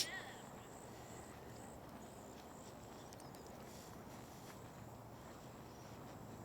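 Quiet outdoor trail ambience: a faint, steady high-pitched insect hum over soft background noise, with faint footfalls. A short sharp noise sounds at the very start.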